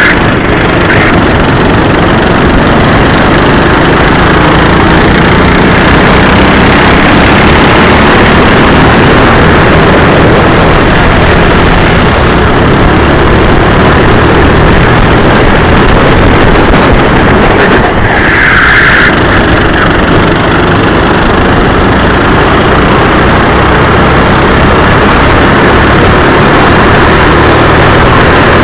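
Loud onboard sound of a SODI RT8 racing kart's four-stroke engine running hard through the laps, with a steady rush of noise under it. A brief high-pitched squeal comes about two-thirds of the way through.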